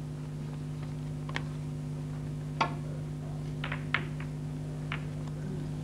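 Snooker break-off shot: sharp clicks of the cue tip and of the balls striking the pack of reds and each other, the loudest about two and a half seconds in, followed by a few lighter clicks. A steady low hum runs underneath.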